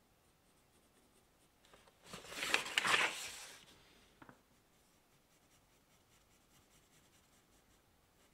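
Pencil drawing on paper: a stretch of scratchy pencil strokes lasting about a second and a half, a couple of seconds in, then a faint tick and light, faint strokes.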